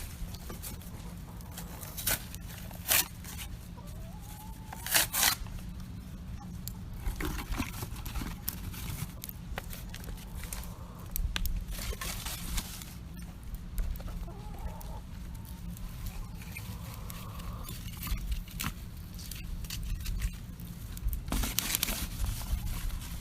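Wood campfire crackling with a few sharp pops, while free-range hens cluck softly now and then. A steady low rumble runs underneath.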